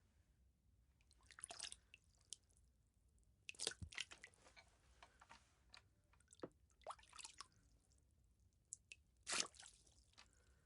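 Water droplets falling and splashing in irregular, scattered drips, some single and some in quick clusters, with the loudest clusters about four seconds in and near the end.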